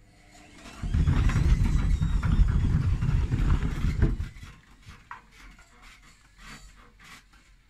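Hotpoint Ariston front-loading washing machine with its tachometer removed and only one shock absorber, spinning an unbalanced load uncontrolled: a loud rumble with rapid knocking and rattling starts about a second in and cuts off suddenly about four seconds in, leaving a few light clicks and knocks.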